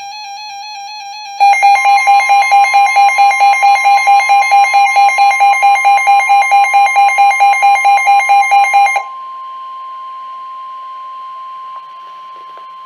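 NOAA Weather Radio warning alert: a weather radio's buzzy alarm tone, which about a second and a half in turns to loud, rapid beeping over the steady single-pitch warning alarm tone. About nine seconds in the beeping stops and the steady alarm tone carries on alone, quieter.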